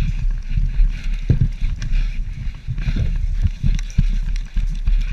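Irregular low rumbling and thumping on a body-worn camera's microphone, from wind and movement, with a few faint clicks.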